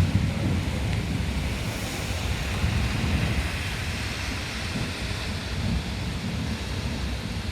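Rainstorm: a steady hiss of pouring rain with gusting wind rumbling on the microphone.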